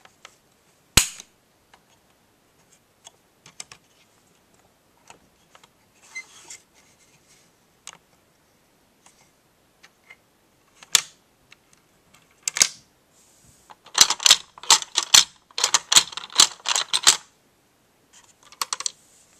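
Hard plastic parts of a toy truck-transporter playset clicking and clattering as they are worked by hand, its lift mechanism among them. There are scattered sharp clicks, then a fast run of rattling clicks lasting about three seconds past the middle, and a short rattle near the end.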